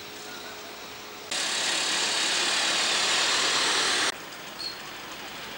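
Loud, steady hiss of steam escaping from a live steam model engine. It starts suddenly about a second in and stops abruptly near the end, over a fainter background hiss.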